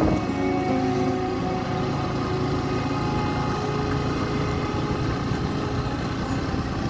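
Small motorcycle engine running steadily as the bike cruises at about 30 km/h, picking up speed slightly, under a steady rush of noise.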